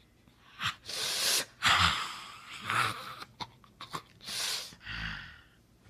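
A person making a series of loud, breathy hisses and gasps close to the microphone, about five in a row, a few with a rough low growl in them.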